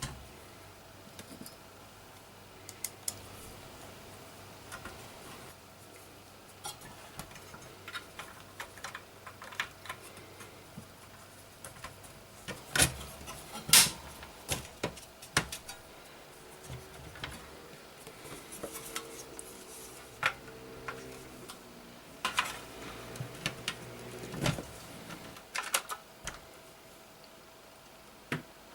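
Scattered clicks, taps and light metallic clinks of small parts, screws and tools being handled, with a few louder knocks, the loudest a little before the middle.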